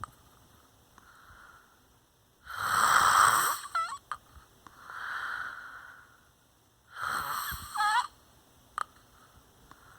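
Snoring or wheezy sleep breathing: a loud noisy breath about every four to five seconds, each followed by a softer breath. Two of the loud breaths end in a short squeaky whistle.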